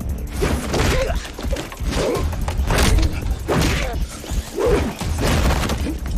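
Fight-scene soundtrack: music with a heavy low beat, under thuds and whacks of blows landing in a hand-to-hand fight.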